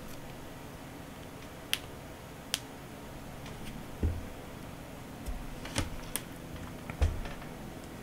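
Scattered sharp clicks and taps of a plastic prying pick working at the edge of a Samsung Galaxy S22 Ultra's adhesive-sealed glass back cover, trying to pry it loose. There are about six separate clicks, and duller knocks come with two of them, about four and seven seconds in.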